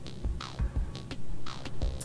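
Background music with a steady, low beat.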